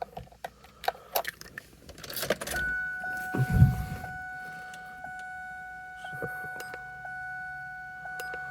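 Keys rattling and clicking as the ignition key is turned on, with a dull thump. Then a steady electronic warning chime starts and pulses about once a second.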